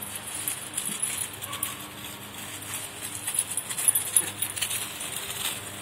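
A dog running and pouncing through dry fallen leaves after a flirt pole lure, the leaves crunching and rustling in quick irregular crackles.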